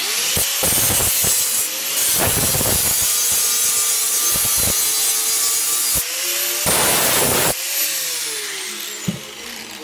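Angle grinder spinning up and cutting into a steel box-section tube, a loud grinding rasp over the motor's whine, which dips under load. Near the end the cutting stops and the disc winds down with a falling whine.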